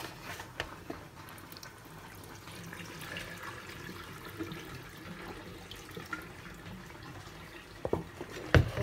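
Water splashing quietly as raw chicken feet are rinsed and moved about in a plastic basin, with a few sharp knocks near the end.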